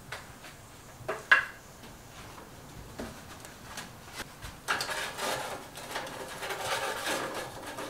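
Metal pieces and hand tools being handled on a workbench: a few light knocks in the first few seconds, then from about halfway in a steady stretch of rubbing and scraping.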